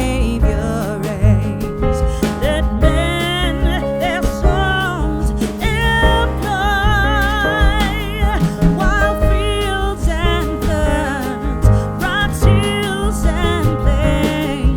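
A song playing: a singer with strong vibrato over bass and instruments.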